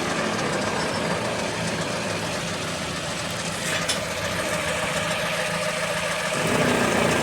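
Pickup truck's front wheel hub spun by hand, its wheel bearing making a steady rumbling growl (ronroneo): the bearing is worn and due for replacement.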